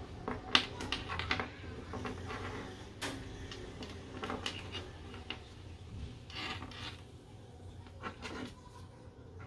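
Small objects being handled on a surface: scattered taps, clicks and rubbing, with a sharp click about half a second in and another about three seconds in.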